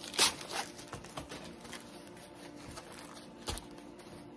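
Plastic packaging of a diamond painting kit crinkling and rustling as it is handled, with one sharp crackle just after the start and a few softer ones after.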